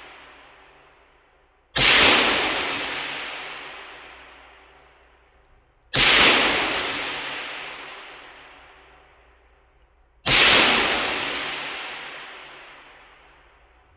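Ruger Precision Rimfire bolt-action rifle fired three times, about four seconds apart. Each sharp shot trails off slowly over several seconds, with faint clicks just after it.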